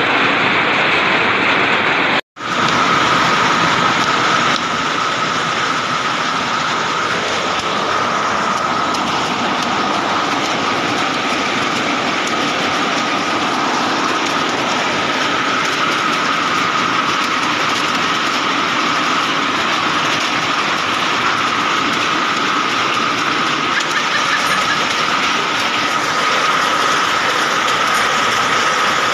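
Heavy hail pelting down onto the roof and ground: a dense, steady, loud clatter with a steady high tone running through it. It cuts out for an instant about two seconds in.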